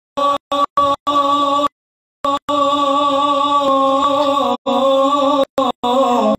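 A man reciting a naat unaccompanied into a microphone, holding long wavering notes. The sound cuts out completely several times, briefly in the first second and for about half a second near the two-second mark.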